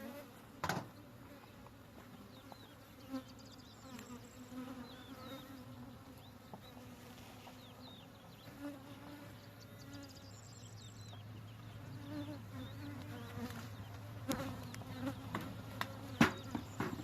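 Swarm of honeybees buzzing around an opened hive, a continuous wavering drone, with a few sharp clicks or knocks, the loudest near the end.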